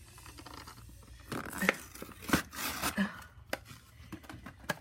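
Toy packaging being pulled apart by hand: plastic and cardboard crinkling and tearing, with several sharp clicks and knocks as the pieces give.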